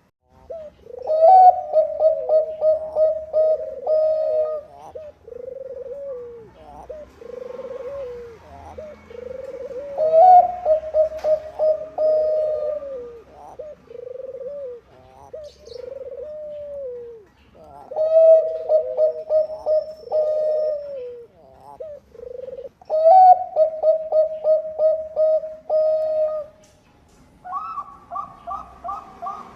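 Zebra doves (Bangkok-bred perkutut) cooing: repeated phrases of quick stuttering notes that run into a held coo, with softer lower coos in between. Near the end a higher-pitched series of coos begins.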